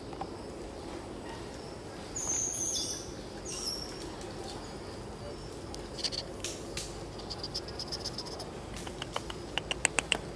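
Outdoor forest ambience with a steady background hum. About two seconds in, short very high-pitched chirps come twice. Later a fast run of ticks builds into several sharp clicks near the end.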